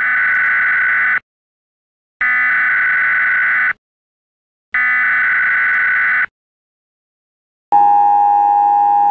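Emergency alert broadcast tones. First come three screeching digital header bursts of about a second and a half each, separated by short gaps. Near the end the steady two-tone attention signal starts.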